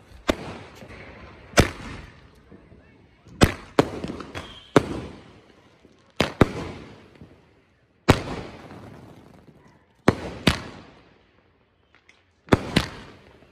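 Multi-shot firework box (cake) firing: about a dozen sharp bangs at uneven gaps of one to two seconds, some in quick pairs, each dying away over about a second.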